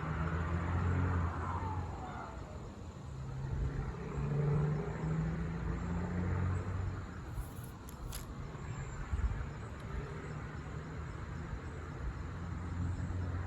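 Low engine rumble of a motor vehicle nearby, rising and easing off, with a short click about eight seconds in.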